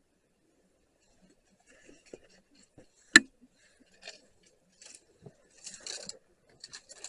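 Scattered light clicks and rustles, with one sharp knock about three seconds in and a brief flurry of rustling near the end.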